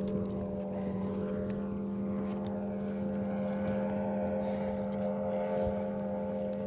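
A boat motor running with a steady hum that holds one pitch throughout.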